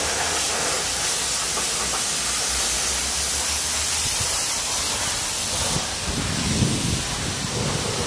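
High-pressure car-wash lance spraying water, a steady hiss for about six seconds. Near the end the hiss stops and a lower rumble takes over.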